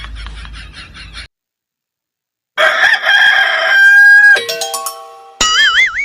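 Rooster crowing sound effect, its call ending in a held note, followed by a run of stepped tones falling in pitch and a wavering warble: cartoon-style sound effects. Before it, a rapid pulsing sound stops about a second in and is followed by a short silence.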